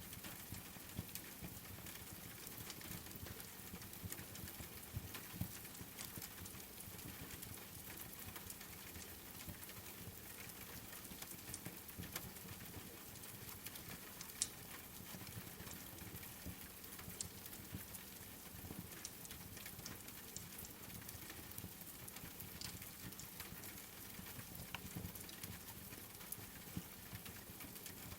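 Steady rain patter with a wood fire crackling: scattered small pops throughout and one sharper pop about halfway through.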